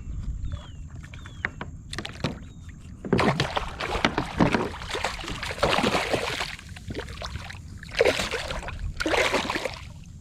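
Water splashing and sloshing around a kayak in two long, rushing bursts, a few seconds apart.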